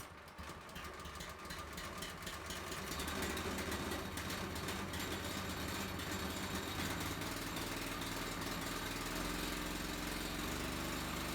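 A sawmill's petrol engine running steadily. It grows louder over the first few seconds, and its note shifts slightly about nine seconds in.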